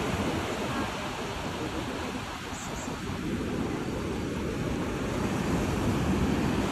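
Sea surf washing onto the beach, a steady rush of breaking waves that swells louder near the end as a wave crests and breaks.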